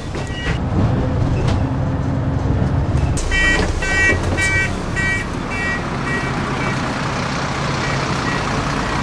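London bus with its engine rumbling steadily. From about three seconds in, its door warning beeper sounds about twice a second and fades away after a few seconds.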